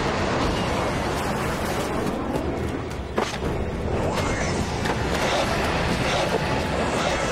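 Animated sci-fi battle sound effects: a continuous din of energy-weapon fire and blasts, with one sharp crack about three seconds in.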